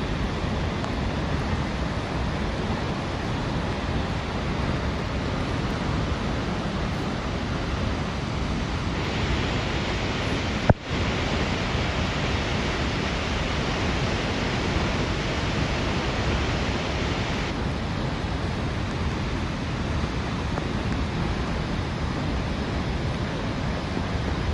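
Snoqualmie Falls plunging into its pool: a steady, even rush of falling water, broken once by a short dropout a little before the middle.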